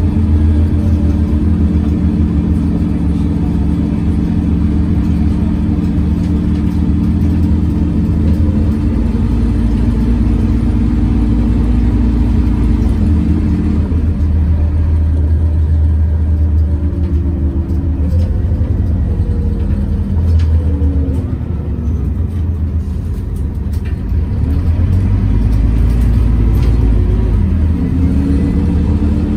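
Scania OmniCity city bus running, heard inside the passenger cabin, dominated by the drone of its loud engine cooling fan, which all but covers the engine. Steady low tones through the first half give way about halfway through to tones that slide up and down in pitch as the bus changes speed.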